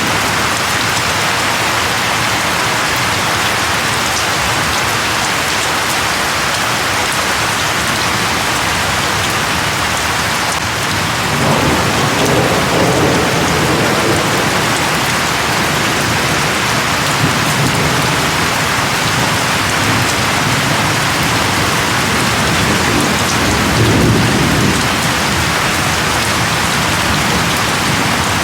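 Steady rain falling, with a low rumble swelling up about twelve seconds in and another near twenty-four seconds.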